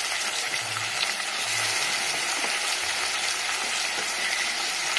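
Country chicken pieces sizzling in hot sesame oil with onions and tomato in a pressure cooker, a steady hiss.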